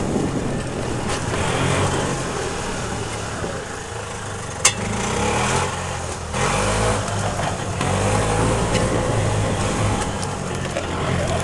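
Golf cart engine running as the cart is driven, its pitch shifting up and down with the throttle, with a single sharp click about four and a half seconds in.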